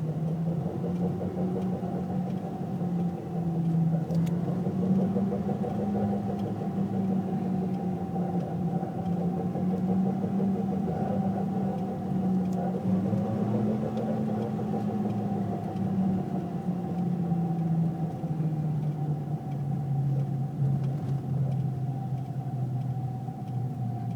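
A 2006 Ford Focus II with the 2.0 engine driving under load, its engine note rising over the first half and falling toward the end. Under load it carries a knock from the front right that comes in above about 2500 rpm and goes silent when coasting. The cause is undiagnosed; garages suggested the gearbox final drive.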